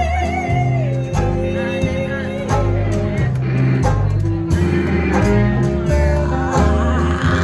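A live band playing: banjo, guitar, upright bass, fiddle, clarinet and drums. A held wavering vocal note ends about a second in, and the band carries on with fiddle and clarinet lines over a moving bass.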